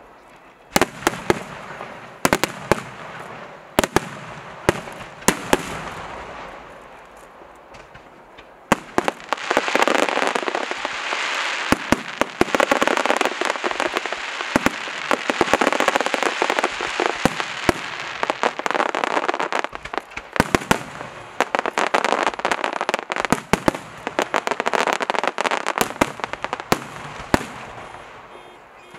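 Aerial fireworks show: shells bursting in sharp bangs one after another. From about nine seconds in, a dense crackling runs for long stretches, broken briefly around twenty seconds.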